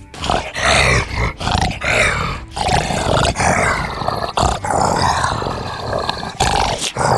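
A rainforest animal calling loudly again and again, each call bending up and down in pitch, one following close on another.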